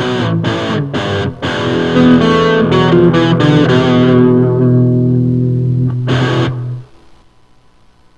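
Rock music led by distorted electric guitar: a few short chord stabs, then held ringing chords over a bass note. A last chord is struck about six seconds in, and the music cuts off near seven seconds.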